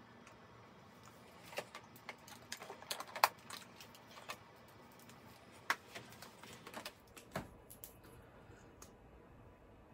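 Light, irregular clicks and taps of makeup items being handled: a makeup brush and cosmetic products knocked and set down. The clicks come in a scattered run for most of the stretch, the sharpest about three seconds in, ending with a duller knock a little past seven seconds.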